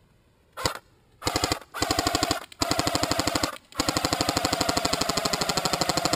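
Battery-powered airsoft AK-47 firing on full auto in rapid bursts: a short one first, then several longer strings of quick, evenly spaced shots, the last a long continuous burst from about four seconds in. The battery is running low.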